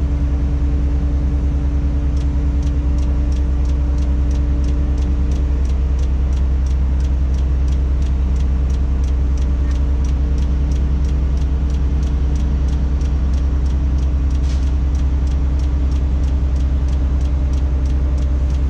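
Tadano 180G-5 crane's diesel engine running steadily, heard from inside the operator's cab as a low drone, with a faint regular ticking about twice a second.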